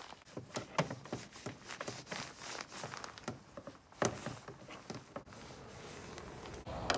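Irregular light clicks and metallic clinks of a ratchet, extension and 13 mm socket being handled and fitted onto the battery hold-down bolt. A steady noise builds up in the last second or two.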